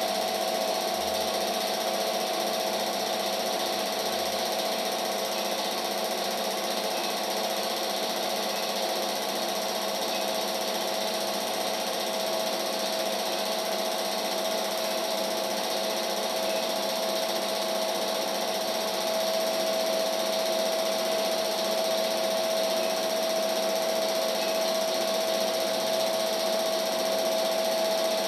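Steady mechanical whirring of a home-movie film projector running, with a constant hum.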